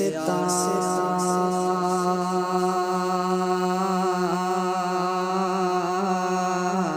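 Naat singing: a voice holds one long sung note without a break, wavering slightly, and moves to a new pitch near the end.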